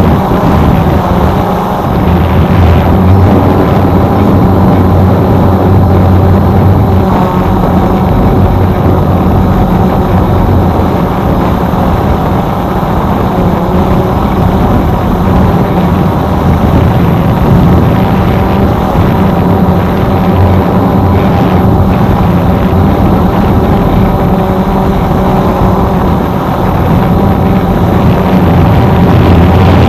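Quadcopter drone's motors and propellers buzzing steadily, with a constant multi-toned hum.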